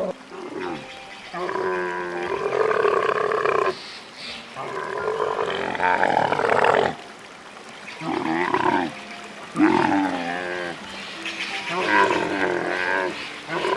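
An animal calling loudly about five times, each call a drawn-out pitched cry lasting a second or two with short pauses between.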